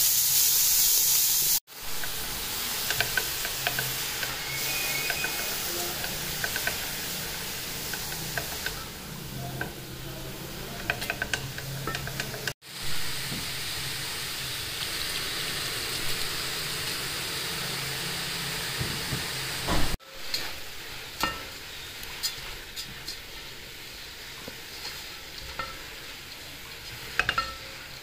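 Grated carrots frying in ghee in a metal pot, sizzling steadily while a spatula stirs them, with scattered clicks and scrapes against the pot. The sizzle cuts off abruptly and resumes three times, loudest in the first couple of seconds.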